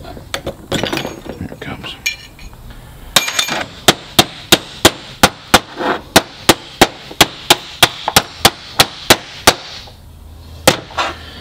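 Hammer blows on a steel punch knocking the old bearing race out of a Subaru R180 differential side-bearing housing: about twenty sharp metallic strikes, roughly three a second. They follow a few seconds of lighter metal clinking, and one last strike comes near the end.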